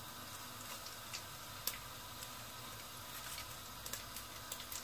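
Tempering in hot oil in a pot: mustard seeds, dals and dried red chillies frying with a faint sizzle and scattered sharp pops, the pops coming faster near the end, as dried curry leaves are dropped in.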